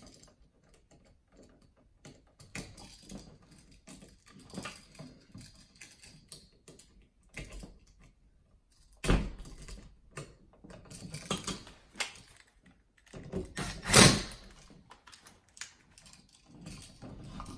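Small clicks, taps and scrapes of hands and tools working on a wall power outlet as its wires are fastened to the terminals, with two louder knocks, about nine and fourteen seconds in.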